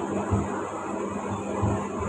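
Steady low hum over even background room noise, with faint low thumps about a third of a second in and again near the end.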